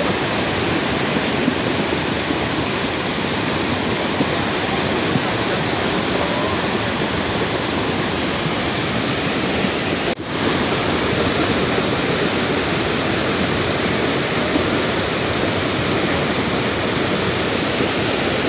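Cold lahar floodwater from Semeru, a fast muddy torrent carrying sand and rocks, rushing with a steady loud roar as a fresh, larger surge comes down. The sound drops out for a moment about ten seconds in.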